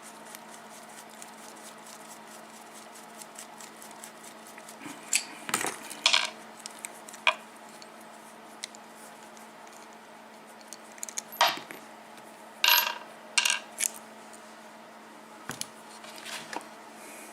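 Metal parts of a Guard six-pin padlock being handled and taken apart: sharp metallic clinks and taps in two clusters, one about five to seven seconds in and another about eleven to fourteen seconds in, over a steady low hum.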